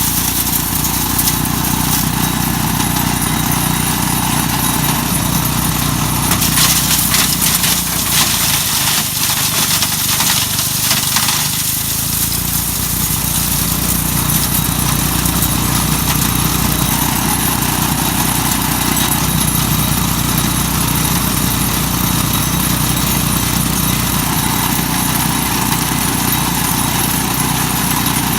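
Mighty Mac wood chipper's engine running steadily at speed while walnuts are fed through it. A stretch of dense clattering and crunching comes about six seconds in and dies away by about twelve seconds.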